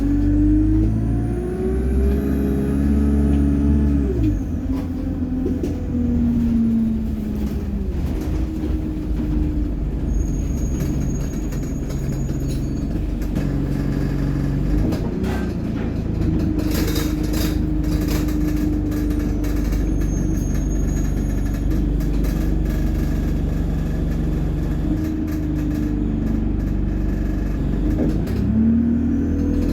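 ADL Enviro200 bus's diesel engine and Allison automatic gearbox under way, the engine note climbing and dropping back as the gearbox shifts, with a high turbo whine rising and falling over it in the first few seconds.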